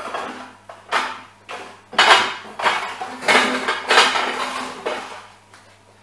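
Kitchen dishes and cutlery clattering: a series of knocks and clinks about a second apart, as crockery and utensils are handled and set down.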